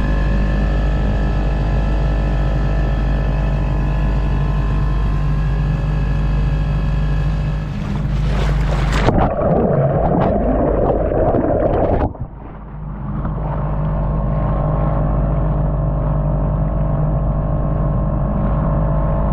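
Small dinghy outboard motor running steadily under way, with water rushing past. About nine seconds in the sound goes underwater for about three seconds, turning muffled with the treble gone, then the outboard comes back, slightly duller.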